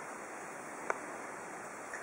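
Steady faint hiss of background room tone, with one small click about a second in.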